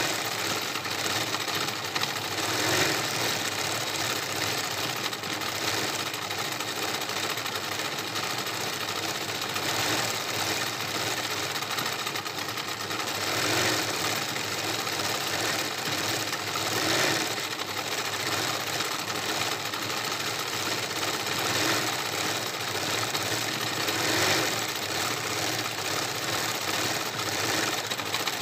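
Domestic sewing machine running steadily, stitching free-motion embroidery through fabric, with small surges in speed and loudness every few seconds.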